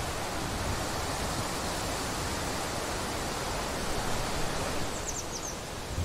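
Steady wind rushing through woodland trees and grass, with low gusts. Near the end, a bird gives a quick run of a few high, falling chirps.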